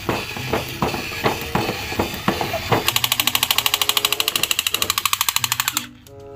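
Battery-operated crawling-soldier Spider-Man toy playing its electronic gunfire sound effects: at first a repeating pattern of sharp shots about three a second mixed with short beeping tones. From about three seconds in it switches to a rapid machine-gun rattle of about a dozen shots a second, which cuts off abruptly near the end.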